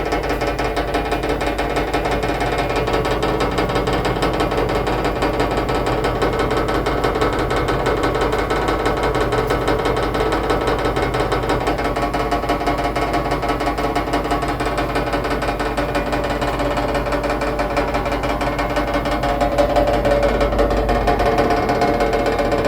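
Washing machine in its final high-speed spin, running loud and steady with a fast continuous rattle from the vibrating drum and cabinet, swelling a little louder near the end.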